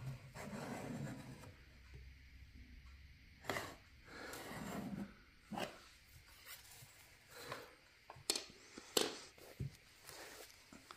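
Faint, scattered scratching and rustling on a cardboard box with a cat inside, with a few sharper ticks.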